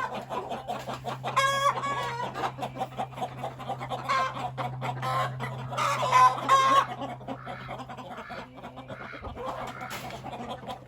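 Chickens clucking in bursts of short pitched calls, about a second and a half in, around four seconds and around six seconds, over a steady low hum.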